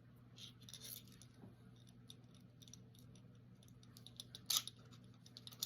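ASP rigid handcuffs being shimmed open: faint scattered metal clicks and rattles, with a sharper metallic clack about four and a half seconds in and another near the end.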